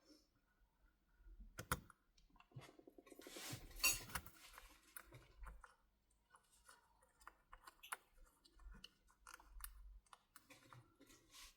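Faint scattered clicks and scraping of small hand tools working on phone parts, with a sharp click about two seconds in and a louder scratchy stretch around the fourth second.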